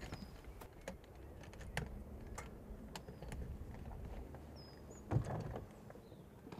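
Quiet outdoor ambience: a low rumble with scattered small clicks and knocks, a few faint short high chirps, and a louder thump about five seconds in.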